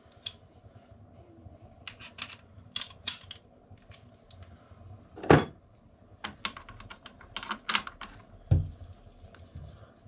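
A ratchet and bit being handled: irregular light clicks and metallic taps, some in quick little runs. There is a louder knock about five seconds in and a dull thump about eight and a half seconds in.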